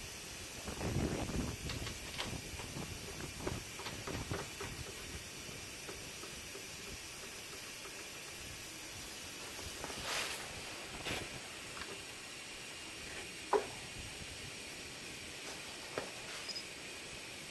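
Scattered clinks and knocks of tools and metal parts as a car's rear lower control arm is worked on, over a steady hiss. A cluster of small knocks comes in the first couple of seconds, and the sharpest single knock about two-thirds of the way in.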